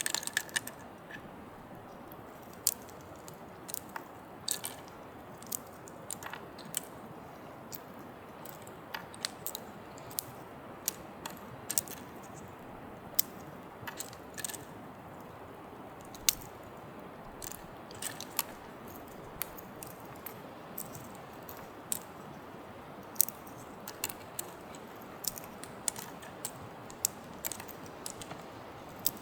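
Wood campfire crackling: irregular sharp pops and snaps, about one or two a second, over a steady background hiss.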